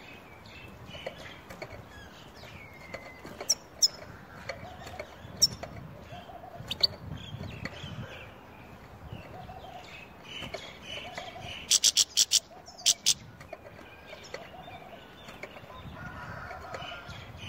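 Goldfinch calling with short chirps and twitters. Sharp clicks are scattered among the calls, with a quick run of four about twelve seconds in, as the caged bird hops and flaps.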